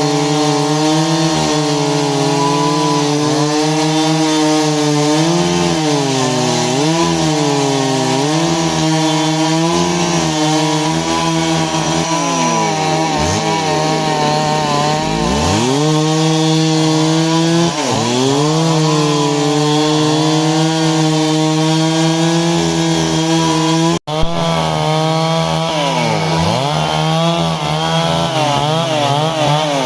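Stihl MS 382 two-stroke chainsaw running at high revs while cutting wood, its engine pitch repeatedly dipping as the chain bogs into the cut and climbing back. Late on, the sound breaks off for an instant with a click.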